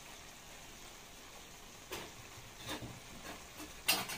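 Chicken livers and gizzards sizzling faintly in a pan. From about two seconds in come a few light clicks and knocks, the loudest near the end.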